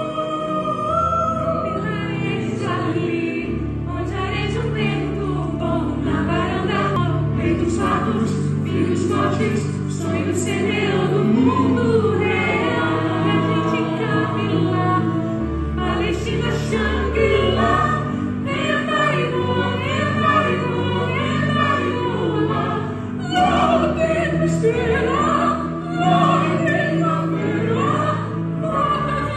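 Music with sung voices in a choral, operatic style over a bass accompaniment.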